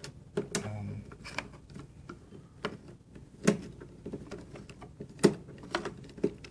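A screwdriver turning a screw in a computer's metal chassis: irregular small clicks and taps, with a few sharper knocks in the second half.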